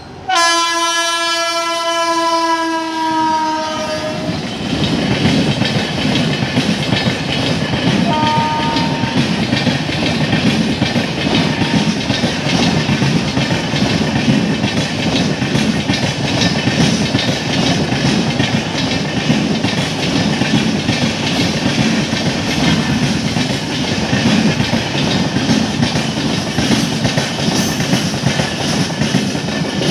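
WAP-7 electric locomotive sounding a long horn blast as it passes at speed, its pitch dipping slightly near the end, with a short second tone about eight seconds in. The long rake of passenger coaches follows, with a steady rumble and clickety-clack of wheels over rail joints at high speed.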